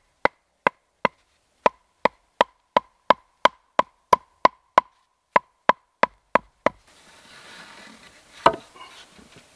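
Wooden club driving wooden stakes into the ground: about eighteen sharp knocks at roughly three a second, stopping about seven seconds in. Then rustling and one heavy knock as a log is laid between the stakes.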